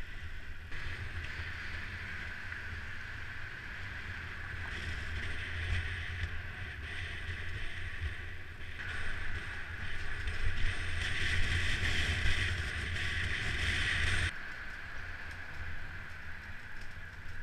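Wind rumbling on the microphone of a camera riding along on a moving mountain bike, with a steady hiss of riding noise over it. The hiss grows louder in the second half and drops away suddenly about three seconds before the end.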